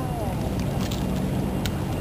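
Steady low rumble of wind on the microphone, with two faint short clicks about halfway and two thirds of the way through.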